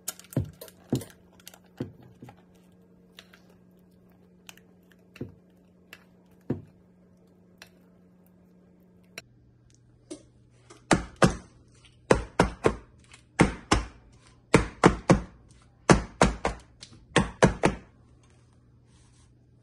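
Scattered light taps and clicks, then a metal springform cake pan full of batter is repeatedly knocked down on a granite countertop: about fifteen sharp thuds in quick pairs and triples over some seven seconds, which settles the batter and knocks out air bubbles.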